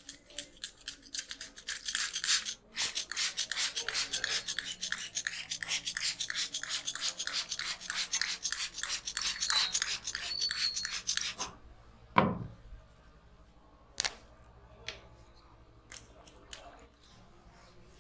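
Quick, rhythmic massage strokes of hands over the head and neck, several a second, stopping about eleven seconds in. A loud sharp sound with a quickly falling tone follows, then a few separate clicks.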